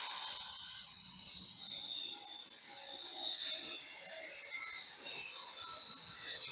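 Corded circular saw running at speed and cutting through wood, a steady high whine whose pitch wavers as the blade works through the board.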